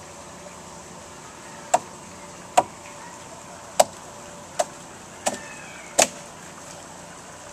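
Six sharp chops of a short-handled hand tool biting into the wooden log of a dugout canoe hull as it is hollowed out by hand, spaced roughly a second apart.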